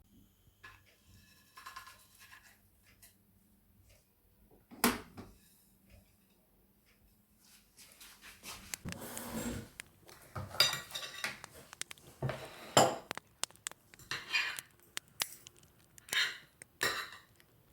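Dishes and cutlery clinking and knocking in a small kitchen: a single sharp knock about five seconds in, then a busier run of clinks, knocks and scrapes through the second half.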